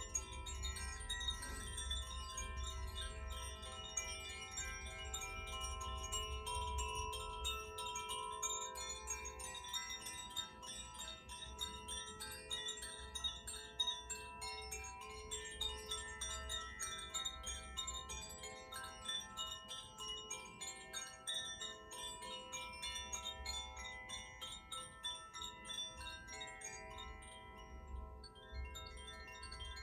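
Several tuned wind chimes from a set of Koshi, Iroha and Zaphir chimes ringing together in a dense, continuous shimmer. Many sustained tones overlap, each renewed by quick light strikes of the clappers.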